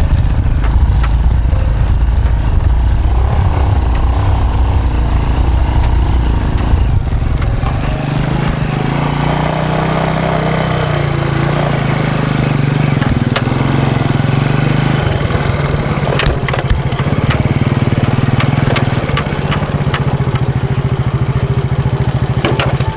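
A vehicle engine running continuously with a heavy low rumble, settling into a steadier hum about eight seconds in.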